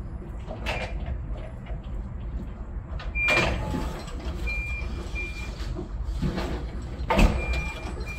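Forklift engine running steadily, with intermittent high reversing beeps and several heavy clunks as forks and pallets knock together. The loudest clunks come about three and seven seconds in.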